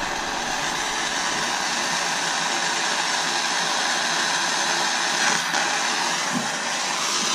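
Gas torch flame hissing steadily while it heats a buckle to flow hard silver solder.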